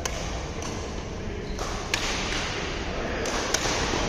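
Badminton rackets striking a shuttlecock: three sharp hits, about one and a half to two seconds apart, ringing in a large hall over a steady low hum.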